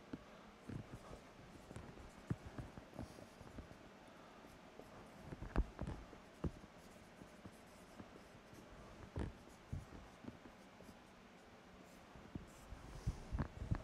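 Marker writing on a whiteboard: faint scattered taps and scratchy strokes, with the strongest taps near the middle and a cluster near the end.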